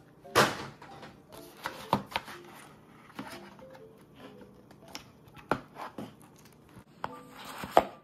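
Cardboard boxes being handled and set down on a wooden table: a sharp knock about half a second in, then scattered taps and clicks, and a brief scrape near the end. Soft background music plays underneath.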